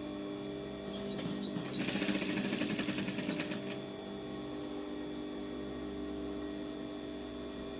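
Industrial lockstitch sewing machine stitching a braided cord trim onto fabric: a run of rapid stitching from about one to four seconds in, then it stops. A steady hum sounds throughout.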